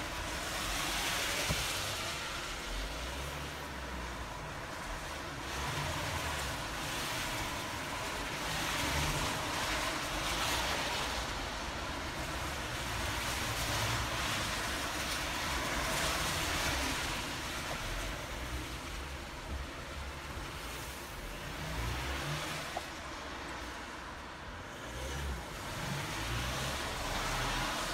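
Cars passing one after another on a wet road. Each pass is a hiss of tyres on water that swells and fades away, several times.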